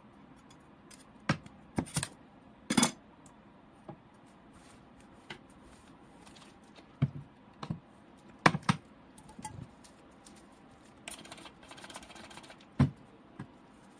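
Handling noise: about ten scattered clicks and knocks of small hard objects being picked up and set down, with a short scraping rustle near the end.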